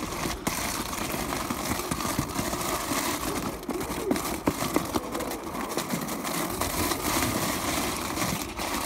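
Penny board's small wheels rolling over hail-strewn paving slabs: a steady rolling rumble with scattered clicks.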